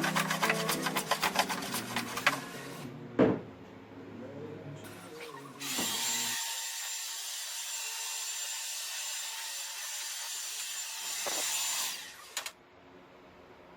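Hand plane working a wooden workbench top, sped up into a rapid run of shaving strokes, with background music. A sharp knock comes about three seconds in, then a steady rasping rub that lasts about six seconds and stops near the end.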